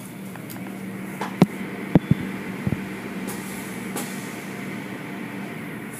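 Steady low machine hum with a constant drone, overlaid by a few sharp clicks and knocks, the loudest about a second and a half and two seconds in.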